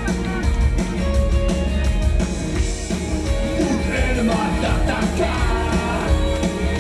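Rock band playing live, with electric guitar and bass guitar over a heavy, steady low end and the singer's voice at times.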